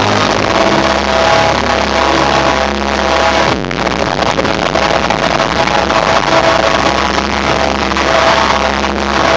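Electronic dance music played loud through an arena sound system, recorded on a phone and sounding harsh and distorted. A heavy bass line and held synth notes run throughout, and the bass cuts out for a moment about three and a half seconds in.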